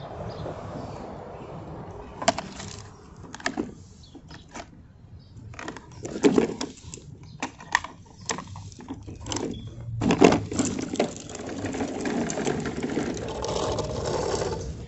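Toy garbage trucks being played with: a series of sharp plastic clicks and knocks, then from about ten seconds in a steady rattle of toy parts that runs on for several seconds.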